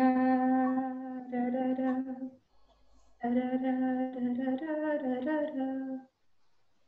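A voice humming a tune in two phrases, each of long held notes with small steps in pitch, separated by a short pause.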